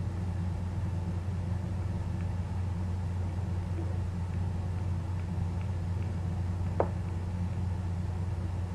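Steady low hum with a constant hiss, and one short click about seven seconds in.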